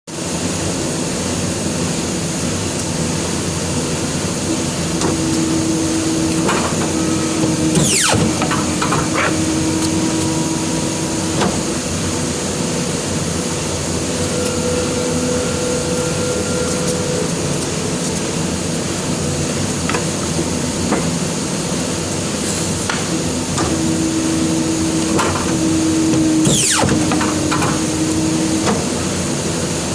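A sharp blade cutting paper, with two long slicing strokes, one about 8 seconds in and another near the end, over a steady background noise.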